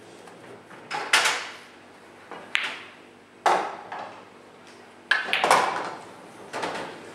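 Pool balls clacking on an English pool table: a few separate sharp knocks in the first three and a half seconds, then about five seconds in a cue strikes the cue ball, which clacks into another ball, followed by a quick run of further knocks.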